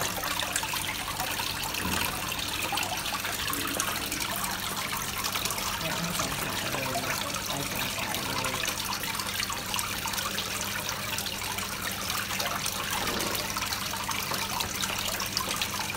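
Water trickling and splashing steadily over the rocks of a koi pond's waterfall, with a low steady hum underneath.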